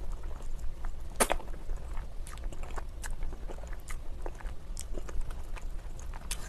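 Close-up eating sounds of a person biting and chewing a mouthful of thick, sauce-coated spicy noodles: irregular wet smacks and clicks, with one louder one about a second in. The audio is sped up to double speed.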